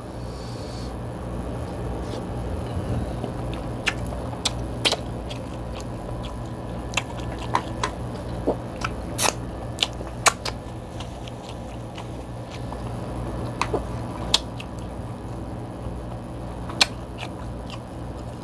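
King crab legs being cracked, picked and snipped with scissors: scattered sharp clicks and cracks of shell, with some wet squishing of meat, over a steady low hum.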